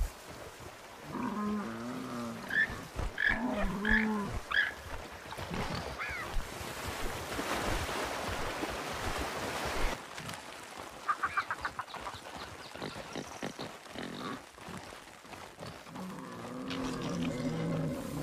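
Animal calls: several low, drawn-out calls early on and again near the end, with short higher calls between them. A stretch of rushing noise comes in the middle, followed by a quick rattling series.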